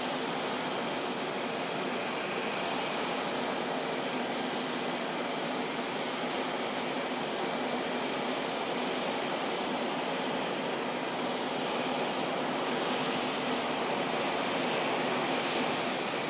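McDonnell Douglas DC-10-30's General Electric CF6 turbofans running as the airliner moves along the runway: a steady jet rush and whine, growing a little louder near the end.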